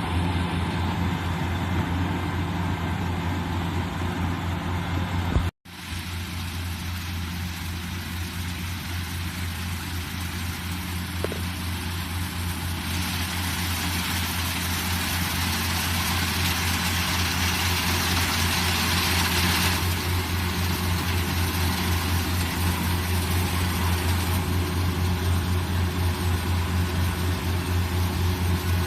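Combine harvester engine running steadily with a deep, even hum. It cuts out for an instant about five and a half seconds in, then carries on.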